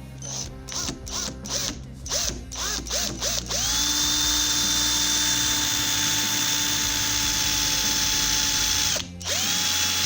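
Small electric power-tool motor switched on in several short bursts that rise and fall in pitch. It then runs up to a steady high whine for about five seconds, stops briefly near the end, and starts again.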